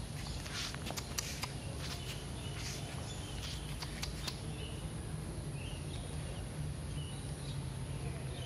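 Outdoor ambience with a steady low hum. Light footsteps click on concrete during the first half, and a few faint, short bird chirps come in the second half.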